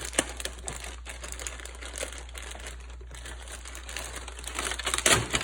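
Plastic packaging crinkling as toy track pieces are handled and unwrapped, with scattered light clicks and a louder burst of rustling near the end.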